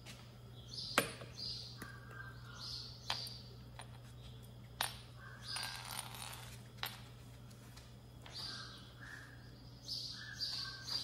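Dry cat kibble clicking against stainless steel bowls and dropping onto the floor: a handful of sharp clicks spread a second or so apart, among softer, frequent crunching as the kitten eats the dry food.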